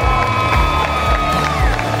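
Music with a steady beat, with a crowd cheering and whooping over it.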